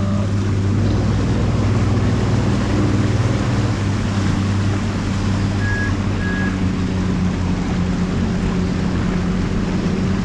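Jet ski engine running steadily at cruising speed, with water rushing beneath the hull; the engine note shifts slightly about halfway through. Two short high beeps sound a little past the middle.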